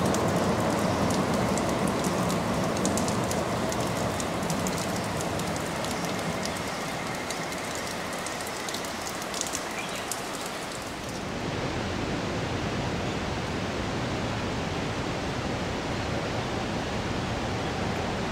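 Steady rain, with the rumble of a Kurobe Gorge Railway narrow-gauge work train fading away as it goes into a tunnel. About eleven seconds in, the sound changes abruptly to an even rain hiss.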